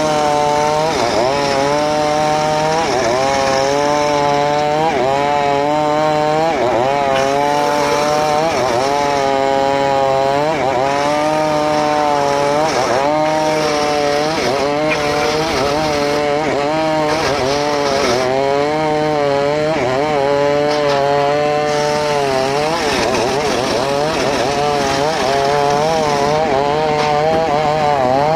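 Homemade circular saw cutting mahogany: a loud, continuous whine whose pitch wavers up and down every second or two, over a steady rasp of cutting.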